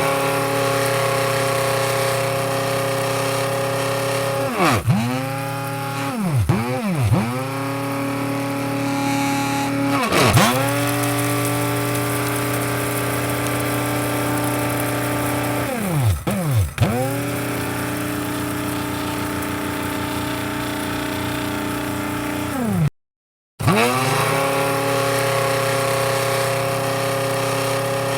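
Electric coffee grinder motor running with a steady whine. Several times its pitch drops sharply and climbs straight back. About three-quarters of the way through it cuts out for half a second and starts again.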